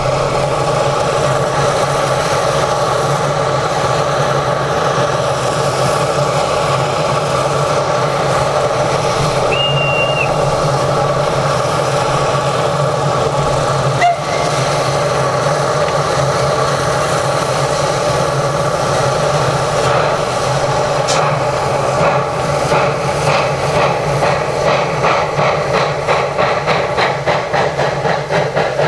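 Saxon class I K No. 54 narrow-gauge steam locomotive standing with a steady hiss of steam, with a short high whistle note about ten seconds in and a sharp click about halfway. In the last third its exhaust beats start up and quicken as it pulls away with its train.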